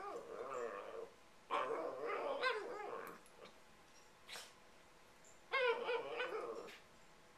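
Dogs play-wrestling, with one dog vocalising in three bouts of warbling whines and yips, the longest about a second and a half, with short pauses between.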